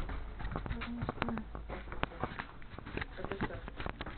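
Handling noise from a body-worn camera: clothing rubbing and knocking against its microphone as an irregular run of soft crackles and clicks.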